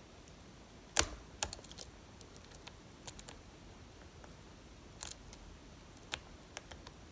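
Lock pick and tension wrench clicking in the cylinder of a Lockwood 334B45 pin-tumbler lock with spool pins during a pick: one sharp click about a second in, then scattered lighter metallic ticks, with another sharp pair of clicks around five seconds.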